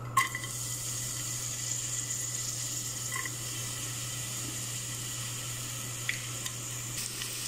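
Chopped red onion dropped into hot cooking oil in a metal pot, sizzling steadily as it fries.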